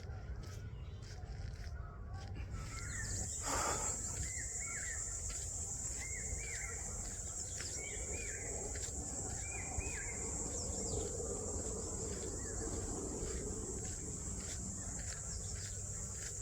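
Outdoor insect chorus: a steady high buzz of crickets or cicadas sets in about three seconds in. Birds chirp in short repeated calls over it, with faint regular footfalls of someone walking.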